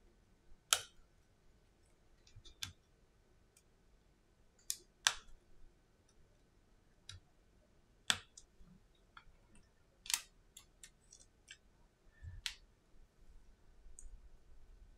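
Sparse, irregular small clicks and taps from hands working on an opened iPhone 7: handling the phone's frame, display assembly and internal parts, about seven sharper clicks spread over the stretch.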